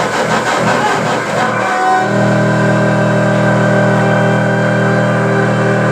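Background music with guitar; from about two seconds in, a chord is held steadily.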